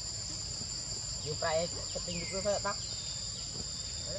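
Steady high drone of insects, with two short, wavering cries from a baby macaque about a second and a half and two and a half seconds in.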